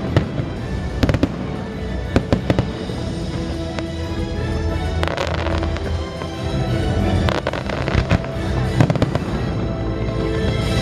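Fireworks display: sharp bangs and crackling bursts at irregular intervals, in clusters, over loud music.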